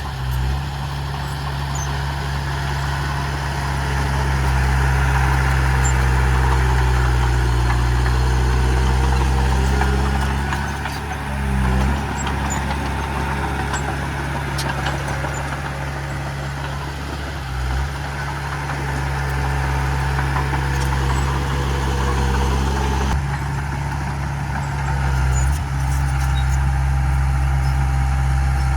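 Diesel engine of heavy earthmoving machinery running steadily, its note dipping and changing briefly a few times.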